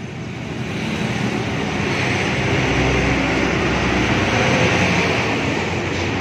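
Rewound electric blower motor, converted from 1400 to 2800 rpm, starting up with a heavy metal fan. It grows louder over the first two seconds, then runs fast and steady with a loud rush of air from the blades.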